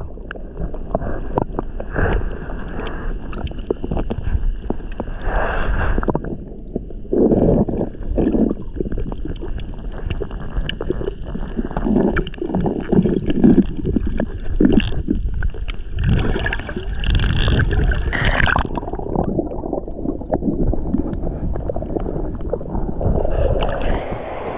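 Water gurgling and sloshing as heard with the microphone submerged in a shallow rock pool: a muffled wash with many small clicks and knocks.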